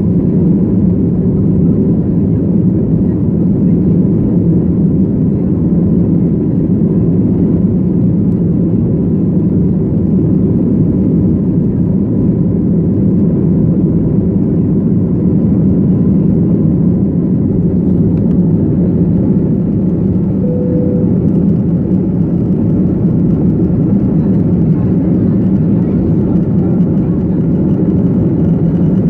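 Steady low roar of an airliner's engines and airflow heard from inside the passenger cabin, with one brief soft tone about twenty seconds in.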